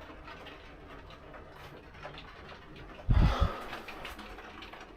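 Quiet room tone, broken about three seconds in by a brief, loud, low thump.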